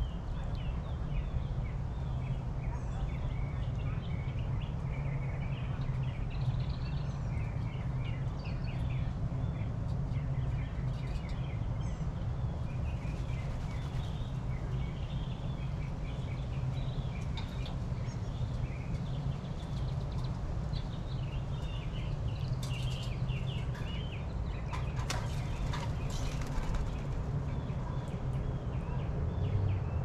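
Small garden birds chirping over and over throughout, over a steady low hum. A few brief rustling noises come in the second half.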